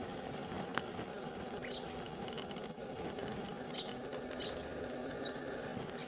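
Great tit pecking at tree bark: scattered sharp taps, one louder tap under a second in, with short high chirps from small birds over a steady low background hum.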